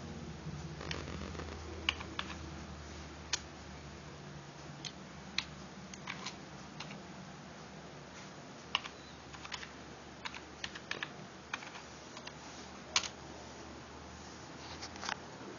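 Key presses on an external computer keyboard: irregular single clicks and short runs of keystrokes, typing a login.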